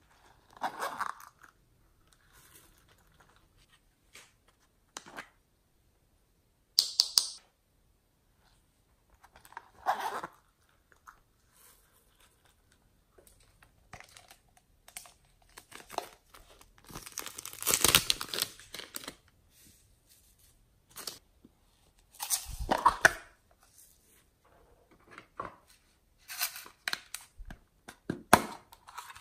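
Hands handling foam squishy toys and a clay block: a series of separate tearing and crinkling sounds a few seconds apart, with quiet gaps between, the longest about two thirds of the way through.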